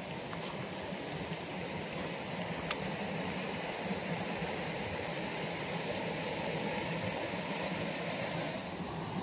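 Steady rushing of a fast-flowing stream, with one brief click about three seconds in.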